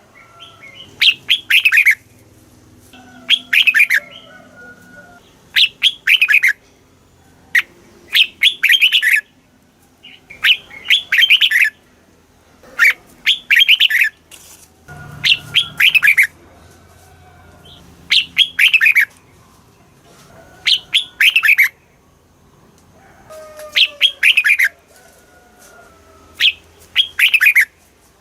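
Red-whiskered bulbul singing: short, bright phrases of a few quick falling notes, repeated about every two seconds.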